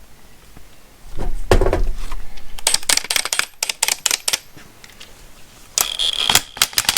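Cordless DeWalt 20V Atomic 3/8-inch impact wrench with a chrome socket, run in short trigger bursts: the motor spins up about a second in, then the hammer mechanism clatters in a loud, rapid rattle, stops, and starts again near the end.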